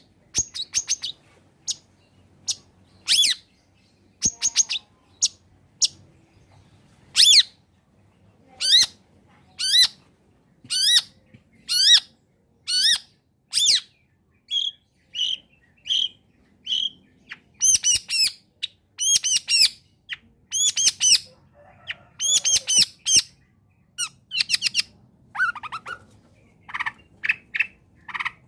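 Long-tailed shrike singing: a string of short, harsh chattering calls, some in quick runs. Partway through there are a few clearer, steadier whistled notes.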